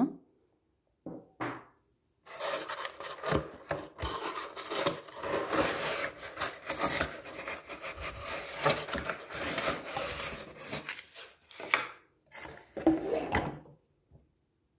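Cardboard box rustling and scraping as a hand digs inside it and works a glass piece out, with scattered knocks. The handling stops and starts in short bursts near the end.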